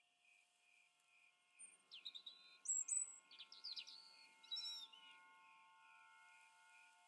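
A songbird calling: a burst of quick, sharp down-slurred chirps and short whistled notes, lasting about three seconds from a second and a half in. Faint steady held tones sound underneath throughout.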